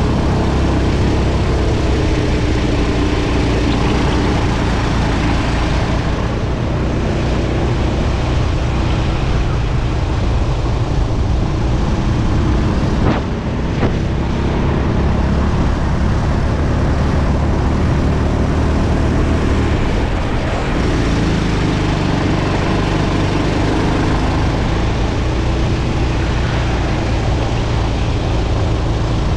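Go-kart engine running hard on track, its pitch rising and falling with the revs through the corners, with two brief clicks about halfway through.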